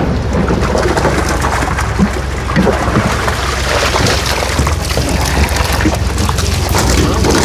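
Water splashing and gushing as live crucian carp are tipped into the pond during stocking, a dense run of splashes over a steady low hum.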